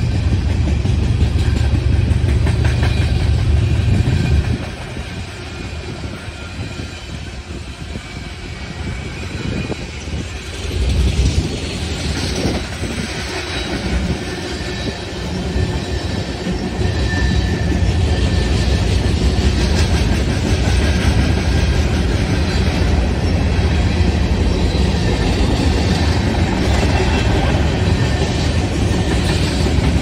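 Freight cars rolling past on steel wheels: a heavy rumble with clacks over the rail joints and a faint thin squeal from the wheels. The rumble eases about four seconds in and builds back up over the second half.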